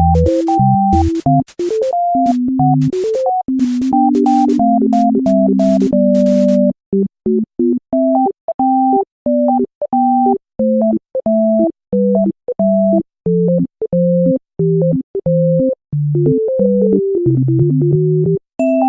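Background synthesizer music: a bouncy keyboard melody of short notes over a drum beat. The beat drops out about six seconds in, leaving the melody on its own.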